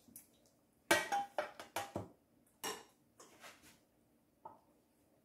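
Metal spoon clattering and scraping against a metal loaf pan as tomato sauce is spread in it: a quick run of sharp clatters, then a few softer taps.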